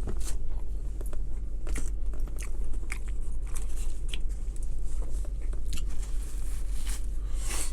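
A person chewing a big mouthful of a McDonald's sandwich close to the microphone, with repeated short wet clicks and crunches, over a steady low hum.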